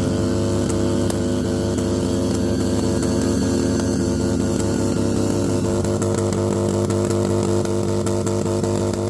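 Motorcycle engine running steadily at held revs, its pitch staying level throughout.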